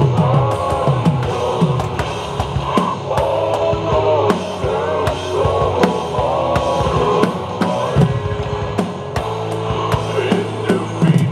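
A Tama drum kit played along to a recorded heavy rock song: frequent kick, snare and cymbal hits over the song's sustained pitched parts and steady bass.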